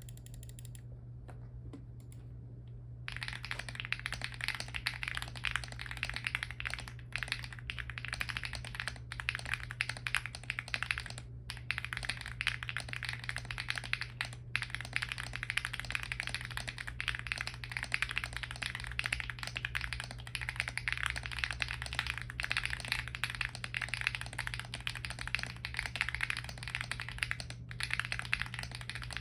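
Fast continuous typing on an Owlab Acrylic Spring 65% mechanical keyboard with lubed and filmed Gateron Baby Kangaroo tactile switches, an FR4 plate and doubleshot ABS Cherry-profile keycaps. The typing starts about three seconds in, over a low steady hum.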